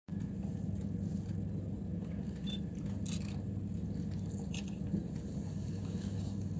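Steady low mechanical hum of an expedition cruise ship's engines, with a few faint clicks about three and four and a half seconds in.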